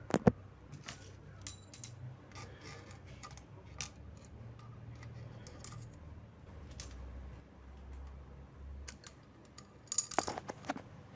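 Sharp metallic clicks and clinks of a tool against loose cylinder head nuts and washers as they are taken off the engine: one loud clink right at the start, scattered lighter ticks, then a quick run of clinks near the end.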